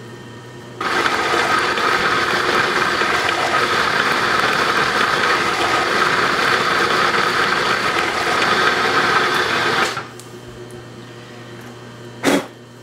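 Bridgeport milling machine spot drilling a row of holes in steel, played back at ten times speed: a loud, dense, high-pitched mechanical whir from about a second in that cuts off suddenly near ten seconds. A low hum follows, with a single click near the end.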